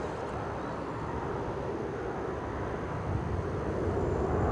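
Distant jet noise of a Boeing 747-8F freighter's four GEnx turbofans on final approach: a steady, low, even noise that grows louder about three seconds in as the aircraft nears.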